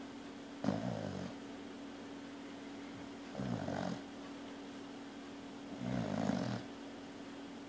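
Snoring in slow, regular breaths: three snores about two and a half seconds apart, each lasting under a second, over a steady low hum.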